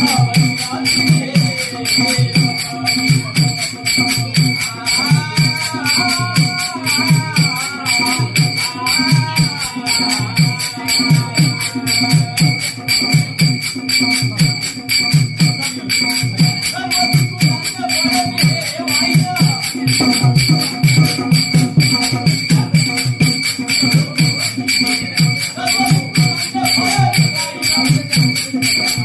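Devotional bhajan music: a row of small brass hand cymbals (taal) clashed in a steady rhythm over a hand drum, with a voice singing from about five seconds in and again near the end.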